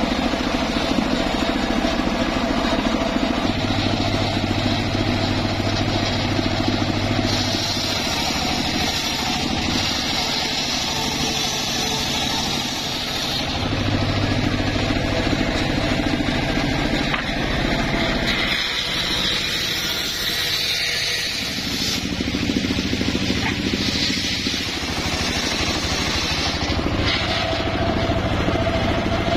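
Engine-driven homemade circular saw bench running steadily while its large blade rips mahogany slabs lengthwise. The high cutting noise swells and fades as each board is pushed through the blade.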